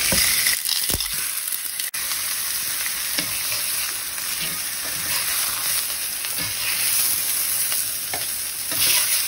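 Chicken breasts sizzling steadily as they brown in hot oil in a cast iron skillet, with a few faint clicks.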